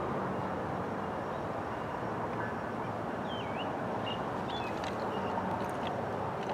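Steady outdoor background noise of a wet evening under a storm sky. A few short, high chirps come through about halfway in.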